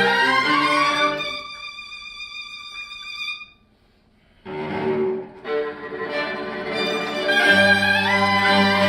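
Live chamber ensemble of Western bowed strings (violins, viola, cello) with Korean traditional instruments playing. A line glides upward into a held high note, the music stops briefly about four seconds in, then the ensemble comes back in and builds, with low notes held under it near the end.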